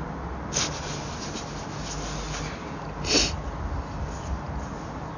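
Rubbing and rustling close to the microphone, over a low steady rumble, with two short hisses about half a second in and about three seconds in, the second the loudest.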